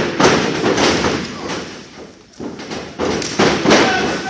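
A series of heavy thuds and slams from the wrestling ring, bodies and feet hitting the canvas, several coming in quick succession in the last second and a half.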